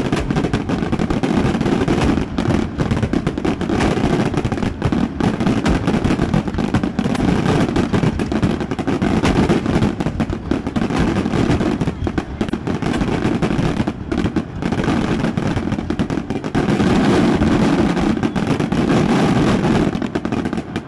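Fireworks display: a dense, continuous barrage of rapid bangs and crackling from aerial shells bursting in quick succession, with ground fountains spraying sparks.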